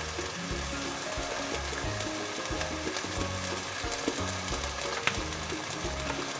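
Chicken pieces in oil sizzling in a pan on a gas stove, a steady frying hiss, with soft background music playing over it.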